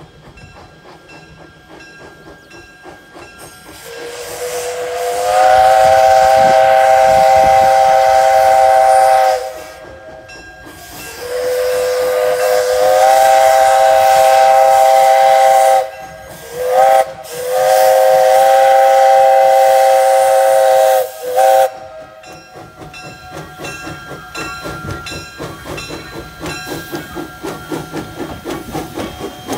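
Steam whistle of a 1928 coal-burning 0-4-0 tank locomotive blowing the grade-crossing signal: two long blasts, a short one and a final long one, several notes sounding together, the pitch sliding up as the first blast opens. After the whistle the engine passes close by with its exhaust chuffing in a steady rhythm and steam hissing.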